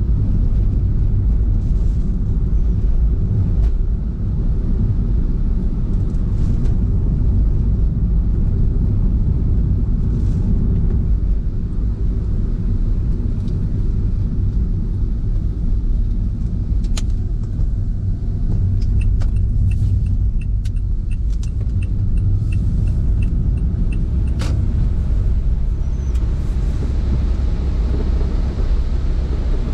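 Steady low road and engine rumble of a car driving, heard from inside the car. A run of even ticks comes in for several seconds past the middle, with a couple of sharp clicks.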